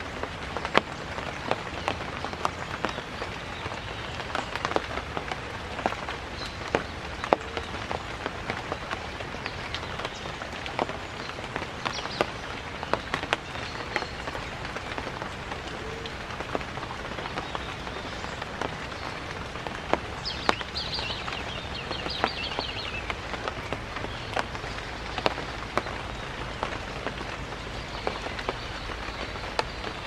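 Steady rain falling on foliage, with frequent sharp taps of drops striking leaves. About twenty seconds in, a short run of high chirps sounds over the rain.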